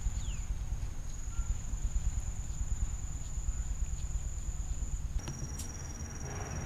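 A steady, high insect trill, with a second, slightly lower trill taking over about five seconds in, over a low rumbling noise.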